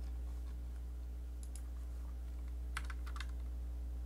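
Computer keyboard typing: two keystrokes about one and a half seconds in, then a quick run of four or five keystrokes near three seconds, over a steady low hum.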